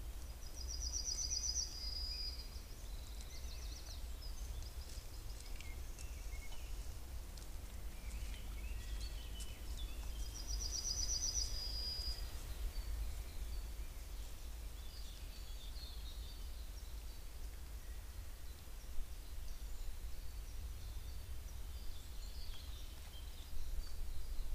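Wild birds singing in woodland: a rapid high trill comes twice, about ten seconds apart, with scattered fainter chirps between, over a steady low rumble.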